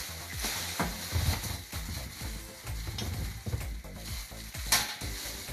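Background music with a bass line under a steady high hiss and a few faint clicks.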